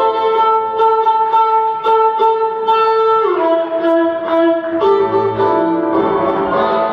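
Instrumental dance music: a long-held melody note that steps down a little past halfway, over a steady beat of about two strokes a second.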